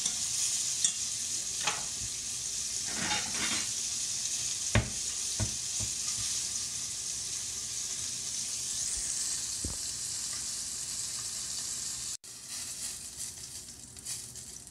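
Flour-dredged squirrelfish pieces sizzling as they fry in a stainless steel skillet, with a few sharp clicks of a metal fork against the pan as the pieces are turned and lifted out. About 12 seconds in, the sizzle drops to a fainter level.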